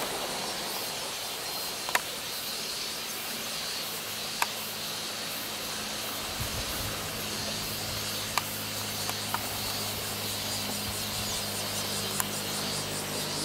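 Steady high-pitched drone of a summer insect chorus. A few sharp clicks stand out, and a faint low hum comes in about halfway through.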